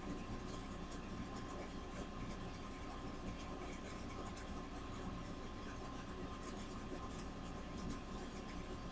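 Faint scratching and light ticking of a fine paintbrush dabbing paint onto a paper cut-out in a picture frame, over a steady electrical hum with a thin whine.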